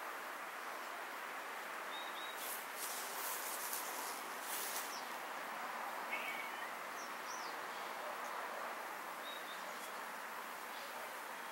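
Outdoor garden ambience: a steady hiss with a few short, high bird chirps scattered through it, and a few brief rustles a few seconds in.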